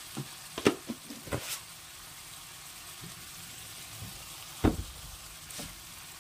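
Insect pupae frying in fat in a pan with a steady sizzle. Several sharp clicks and knocks come in the first second and a half, and a louder knock comes just before five seconds in.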